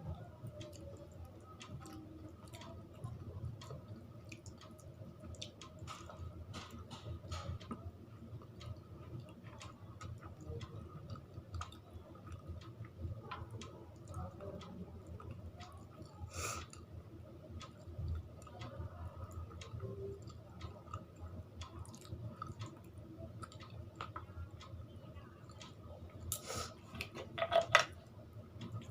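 A person chewing a mouthful of rice and curry close to the microphone, with many small wet mouth clicks throughout. A louder run of clicks comes near the end.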